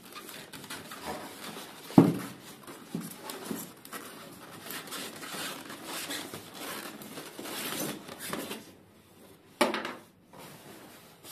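Polystyrene foam packaging rubbing and creaking as a foam lid is worked loose and lifted off its tray, with a sharp knock about two seconds in and another near the end.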